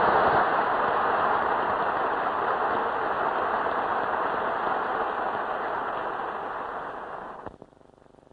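Large audience applauding in a big hall, a dense even clapping that slowly fades, then cuts off abruptly near the end.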